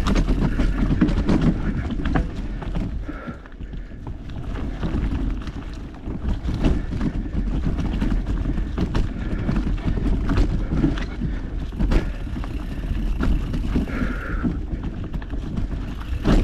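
Mountain bike clattering over a rough trail: a steady low rumble with many sharp knocks and rattles from the frame and chain, and wind buffeting the action-camera microphone.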